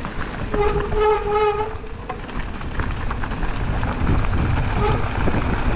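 Mountain bike disc brakes squealing: a steady, horn-like tone for about a second, and a shorter, fainter squeal near the end. Underneath runs the rumble of the tyres on the rough trail and wind on the microphone.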